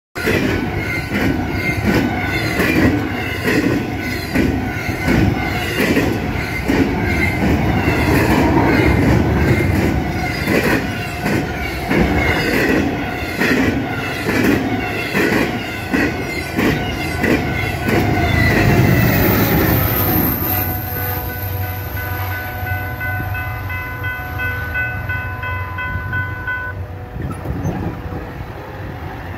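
Fast double-stack intermodal freight train passing close by, its wheels clattering over the rail joints in a quick, steady rhythm. About twenty seconds in the clatter eases and a steady tone with several pitches sounds for about six seconds, then cuts off, over the train's lower rumble.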